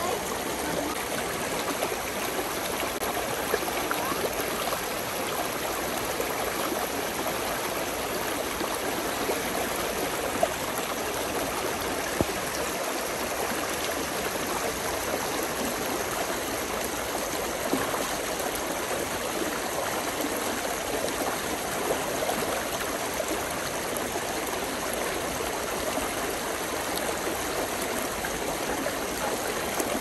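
Spring-fed brook babbling steadily: an even, continuous rush and gurgle of running water, with a few brief sharper splashes.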